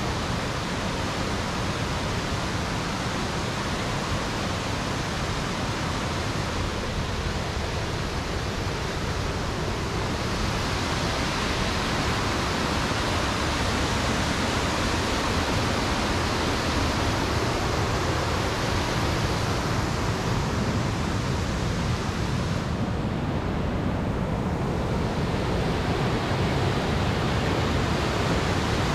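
Amnicon River waterfall running high: a steady rush of heavy, churning water pouring over the rock ledges.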